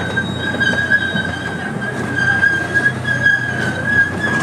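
Small amusement-park train running on its track, with a steady, slightly wavering high-pitched wheel squeal over the low rumble of the cars.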